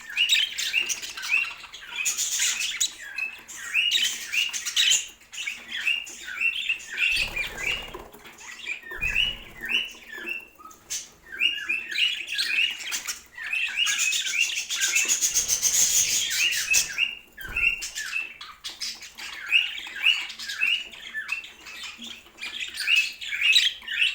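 Budgerigars chirping and chattering: a steady run of short, quick chirps, with harsher, noisier bursts about two seconds in and again around fifteen seconds in. There are a few low thumps in between.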